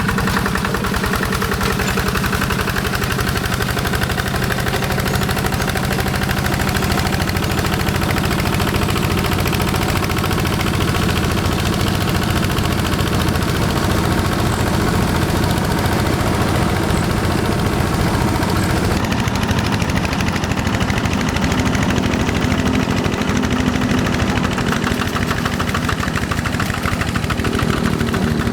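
Single-cylinder Yanmar diesel engine of a Quick G1000 hand tractor running steadily, with a fast, even beat of firing strokes.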